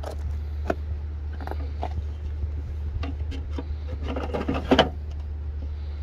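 Plastic clicks and rattles as a Ford Ranger's front turn signal lamp housing and bulb socket are handled, with a busy cluster of clicks and knocks about four to five seconds in, over a steady low hum.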